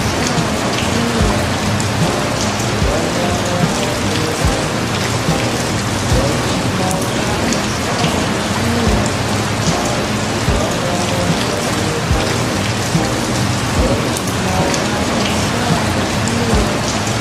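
Recorded rain falling steadily, an even dense hiss, with faint music underneath and soft low thuds every second or two.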